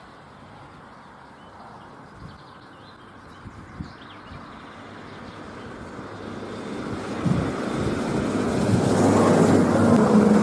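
Stadler Regio-Shuttle RS1 diesel railcar approaching and passing close by: the rumble of its wheels on the rails and its underfloor diesel engine grow steadily louder, with a sharp thump about seven seconds in and the engine's steady drone plain in the last couple of seconds.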